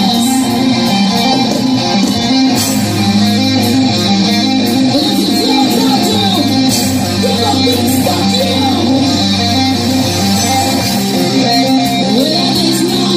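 A live nu-metal band playing loudly, with electric guitar to the fore.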